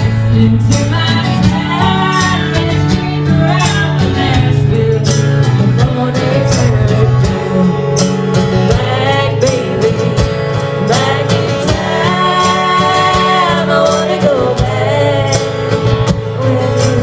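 Live country band music: singing over strummed acoustic guitar with low sustained instrument notes and a steady beat.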